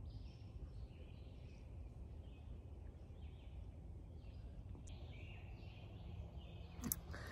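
Faint, distant birdsong in the woods: soft, repeated calls over a low steady rumble, with a brief click near the end.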